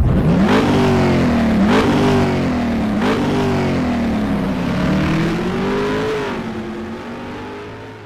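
Petrol car engine revving hard, its pitch jumping up sharply three times and sinking back in between, then swelling once more and fading out near the end.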